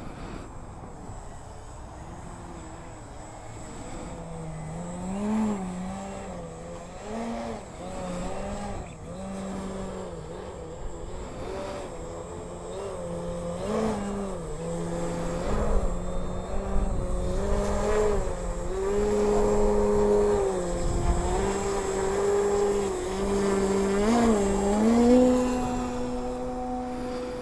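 Radio-controlled aerobatic model airplane's motor and propeller, its pitch rising and falling over and over as it is throttled through stunts and passes, loudest about 25 seconds in, then holding a higher steady note near the end.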